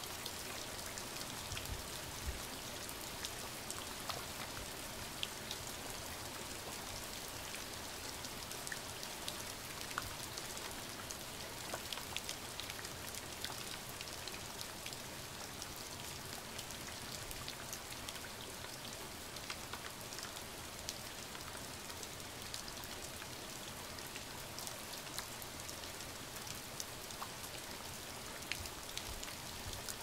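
Steady rain falling: an even hiss with many individual drops ticking sharply on a surface.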